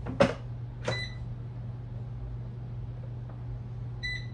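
An air fryer is shut with a loud thud, then its control panel gives short high beeps as it is set, once about a second in and again near the end.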